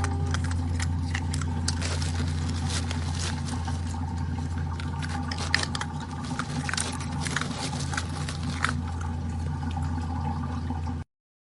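Baby otter crunching and chewing ice: a busy run of sharp crackling clicks over a steady low hum, cutting off suddenly near the end.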